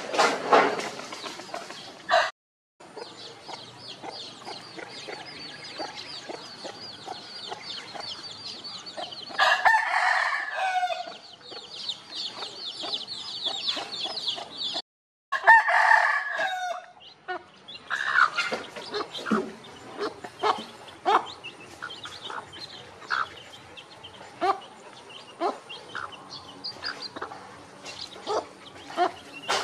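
Chickens calling: a rooster crows twice, about ten and sixteen seconds in, among hens clucking with many short calls.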